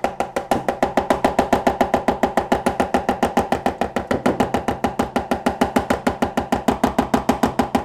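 A mallet beating rapidly and steadily on the side of a metal pan filled with wet sand and water, about six or seven blows a second, each with a short metallic ring. The pounding is the simulated earthquake shaking that liquefies the sand.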